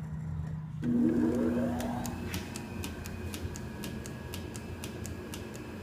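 South Bend 480RN flat-belt lathe switched on in forward: its 1/4-horsepower single-phase GE motor hums on about a second in and spins up with a rising whine. It then runs steadily, with a light regular ticking about three times a second.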